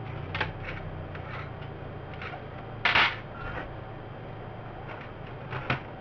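Handling noises on a workbench as an analog multimeter is set down and handled: a few light clicks and knocks, a louder brief clatter about three seconds in, and a sharp knock near the end, over a steady low hum.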